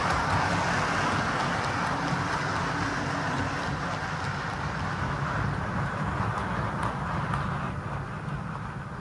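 Model passenger train running past on its track, the wheels of the coaches rolling and clattering over the rails in a steady rush that fades away near the end.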